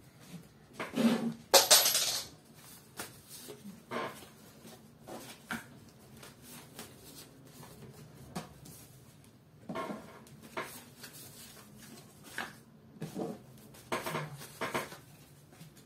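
Tarot cards being handled and laid down on a wooden table: scattered taps and slaps of cards, with a louder clatter of handling about two seconds in.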